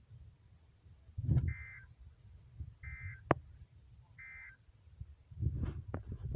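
NOAA Weather Radio's EAS end-of-message signal: three short bursts of warbling digital data tones, about a second apart, marking the end of the severe thunderstorm warning. A low rumbling noise with a few sharp clicks runs underneath, the loudest of it just before the first burst and building again near the end.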